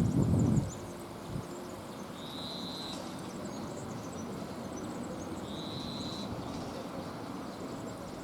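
Pond-side outdoor ambience: a short, steady high whistle repeats about every three seconds over a faint hiss, with scattered faint chirps. A low rumble of wind on the microphone dies away about half a second in.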